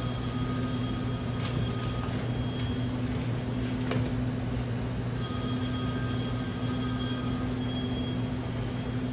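Phone ringing twice: a ring of about two seconds at the start, a pause, then a second ring of about three seconds from about five seconds in, before it is answered. A steady low hum runs underneath.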